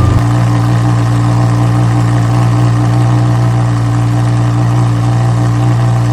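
Lamborghini engine sound effect that settles just after the start into a steady idle at an even pitch.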